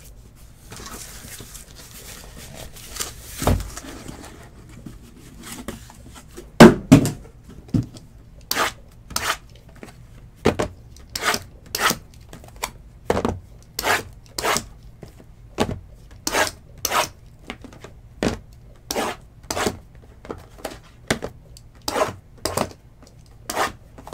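2019 Tier One baseball hobby boxes being handled on a table: a soft rustle of packaging at first, two heavier knocks, then a steady run of short clacks, about one or two a second, as the boxes are set down one after another.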